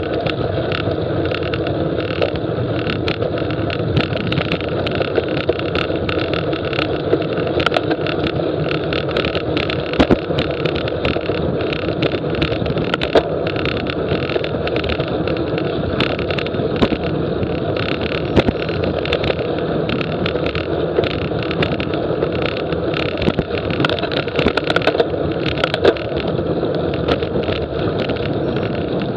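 Steady rush of wind and road noise while riding a bicycle, with frequent small clicks and rattles throughout.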